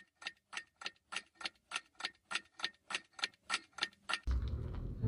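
Ticking clock sound effect, about three even ticks a second, over a clock transition card. The ticking stops about four seconds in as a steady background sound comes in.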